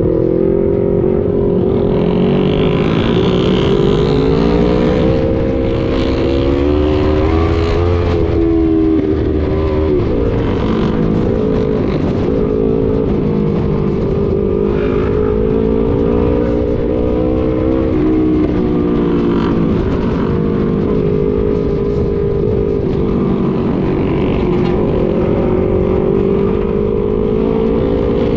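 Motorcycle engine running under way, its pitch rising and falling gently every few seconds as the throttle changes, over a steady low wind rumble on the microphone.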